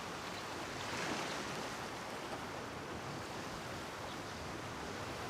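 Steady rushing outdoor ambient noise, swelling slightly about a second in.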